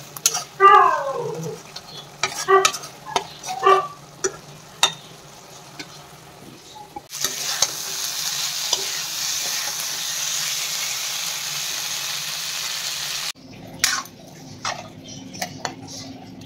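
Metal spatula scraping and clacking in an iron kadai as a cauliflower and potato curry is stirred, with a few short gliding squeaks in the first four seconds. About seven seconds in, a loud steady sizzle of the vegetables frying starts and cuts off suddenly some six seconds later, followed by more spatula taps against the pan.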